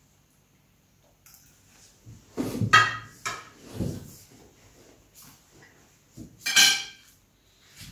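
Plates and cutlery clinking and knocking on a dining table as a plate is slid across and food is picked up with a fork: a few separate clatters, loudest about a third of the way in and again near the end.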